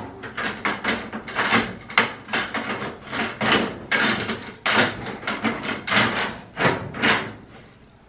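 Plastic detergent dispenser drawer of a top-loading washing machine being jiggled in and out: an irregular run of short plastic clatters and scrapes, several a second, which die down near the end.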